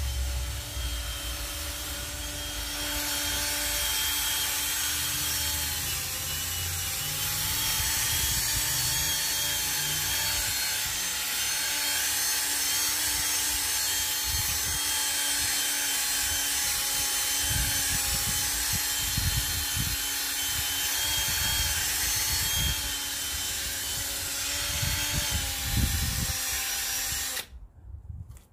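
Cordless drill spinning a foam polishing pad against a plastic headlight lens to buff in polish: a steady motor whine over the rubbing of the pad, shifting slightly in pitch a few times. The drill stops suddenly near the end.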